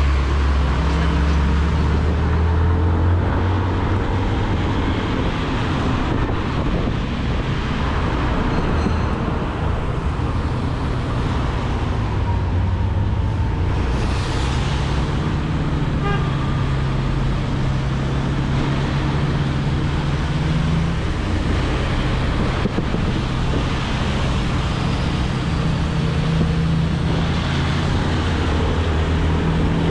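A Motolux MTX 125 motorcycle's small engine running at steady road speed, a low hum that shifts in pitch now and then. Underneath is a rush of wet-road tyre noise and surrounding traffic, which swells briefly about fourteen seconds in.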